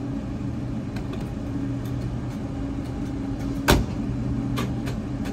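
5.3 L LS V8 engine of a pickup truck running steadily at an even pitch, with a single sharp knock about two-thirds of the way through.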